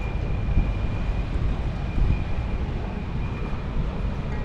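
Wind buffeting the microphone on a sailing yacht beating upwind in about 15 knots: a steady, fluttering low rumble, with a faint high steady tone above it.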